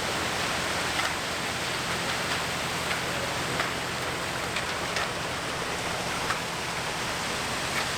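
Steady work noise of a concrete pour: an engine hums low and steady under an even wash of hiss, with a few faint ticks.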